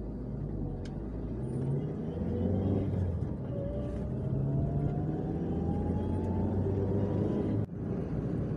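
Perodua car's engine and road noise inside the cabin while driving, the engine note rising slowly as the car speeds up. It breaks off abruptly near the end.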